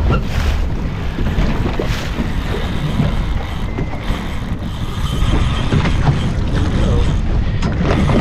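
Wind buffeting the microphone, a steady low rumble, over choppy open-ocean water splashing and slapping against a boat's hull, with scattered small knocks.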